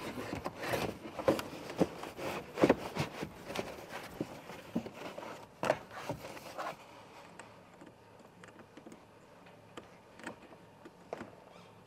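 Plastic interior car trim being handled and fitted back into place: a busy run of scrapes, rattles and sharp clicks for about seven seconds, then only a few scattered light clicks.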